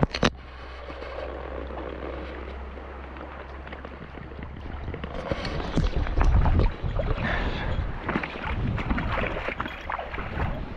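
Shallow, fast river riffle flowing and splashing close to the microphone, with a couple of sharp splashes right at the start and louder splashing and wind rumble from about five seconds in.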